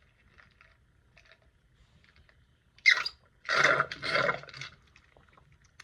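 Eating noises from a person eating spicy chicken wings: faint mouth clicks, then about three seconds in a sharp short mouth sound followed by a loud, noisy rush of breath and mouth noise lasting over a second.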